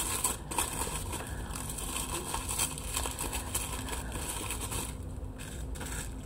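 Packaging being handled and opened: paper and plastic rustling and crinkling, with small scrapes and ticks.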